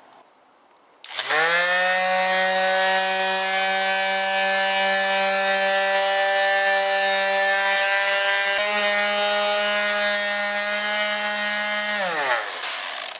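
Corded electric palm sander switched on about a second in, spinning up and running steadily as it sands the seat of a plastic garden chair. Near the end it is switched off and winds down with falling pitch.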